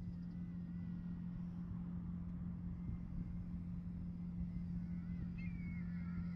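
A steady low drone runs throughout; from about five seconds in, black kites call with high, wavering, gliding whistles.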